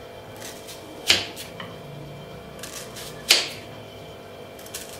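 Kitchen knife cutting down through a raw red onion to a wooden board: two crisp cuts about two seconds apart.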